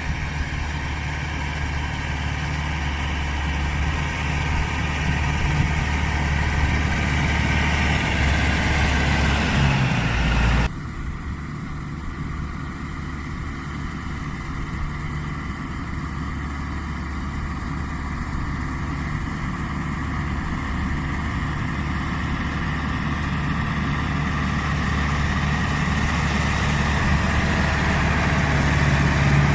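Case CX80 tractor's diesel engine running steadily under load while pulling a four-furrow plough through heavy soil. The sound changes abruptly about a third of the way in, then the engine slowly grows louder.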